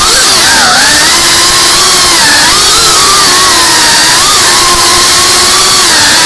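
FPV racing drone's brushless motors and propellers whining loudly and continuously, the pitch dipping and rising as the throttle changes, with a sharp dip about half a second in.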